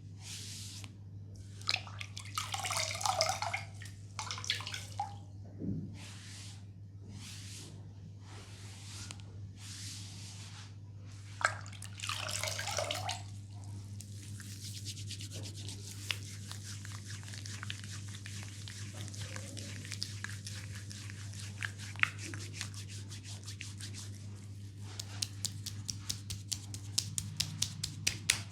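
Brushing and rubbing strokes on skin while the knee is cleaned. Separate swishes come first, then continuous scrubbing with many small clicks, turning to quick light ticks near the end. A steady low hum runs beneath.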